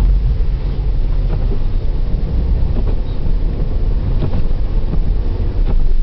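Steady low rumble of a 1993 Opel Vectra 2.5 V6 and its tyres on a snowy, slushy road, heard from inside the cabin, with a few faint knocks now and then.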